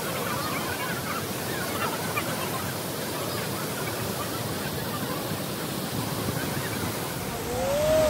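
Steady rush of the Krang Suri waterfall and its stream, an even wash of falling water. A short call that rises and then falls in pitch comes near the end.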